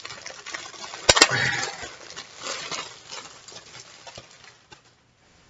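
Packaging rustling and crinkling as a folded t-shirt is handled and unwrapped, with two sharp clicks close together about a second in. The rustling fades out near the end.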